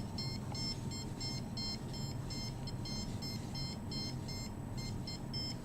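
Handheld RF/microwave detector beeping rapidly, short electronic beeps about five a second with a brief break near the end, an alarm that its owner takes as a sign of high microwave readings.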